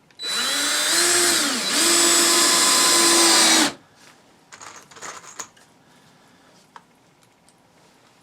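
Power drill motor running in one burst of about three and a half seconds, its pitch sagging briefly as it takes load, then steady until it stops. A few light clatters and a click follow.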